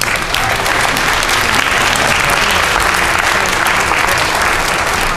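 Audience applauding: many hands clapping in a dense, steady patter that starts suddenly and holds for several seconds.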